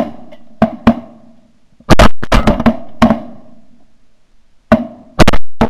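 A volley of shotgun blasts from several hunters firing at geese: about a dozen sharp reports in three quick clusters, each with a short ringing tail.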